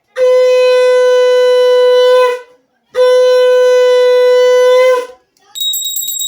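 Conch shell (shankha) blown in two long, steady blasts for the Bengali evening sandhya puja. Near the end a small hand bell starts ringing rapidly.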